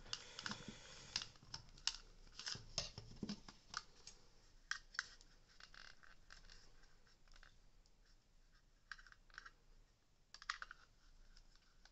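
Irregular small clicks and scraping of hard plastic as a Dyson V8 vacuum's handle housing and trigger-switch cable are handled and fitted. The clicks come thickest in the first few seconds and again in a short cluster near the end.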